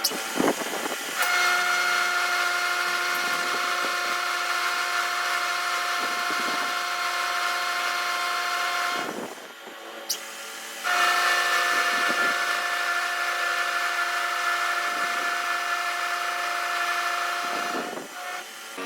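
A workshop machine running with a steady whine. It stops for about two seconds about halfway through, with a single click, then starts running again.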